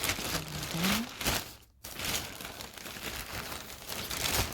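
Crinkling and rustling of plastic packaging being handled, in dense grainy bursts with a brief break about halfway through.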